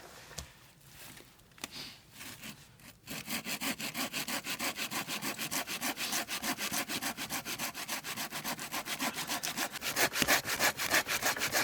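Hand saw cutting through wood, starting about three seconds in and running in rapid, even back-and-forth strokes, after a few scattered knocks and rustles.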